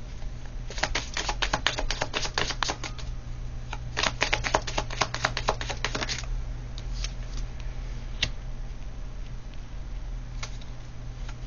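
Tarot cards being shuffled by hand: two runs of rapid clicking card noise, then a few single clicks, over a steady low hum.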